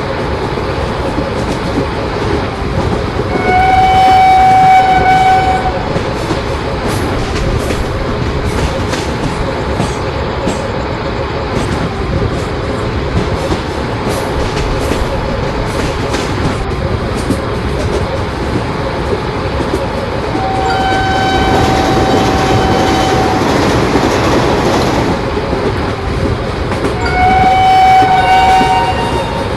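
Indian electric train running past with steady wheel-and-rail rumble and clatter, its horn sounding three long blasts: about three seconds in, around twenty seconds in, and a shorter one near the end.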